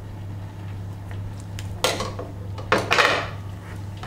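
Knife and rabbit carcass knocking on a wooden cutting board during butchering: a sharp knock about two seconds in, then a louder clatter a second later, over a steady low kitchen hum.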